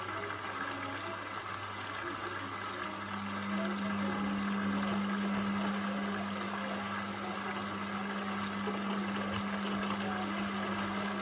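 Indesit front-loading washing machine on a boil wash: the drum motor starts turning the wet towels about three seconds in with a steady hum, over a constant low hum and water sloshing in the drum.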